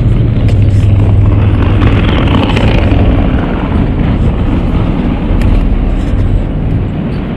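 Wind rumbling on a bicycle-mounted camera's microphone during the ride, over street traffic, heaviest in the first three seconds.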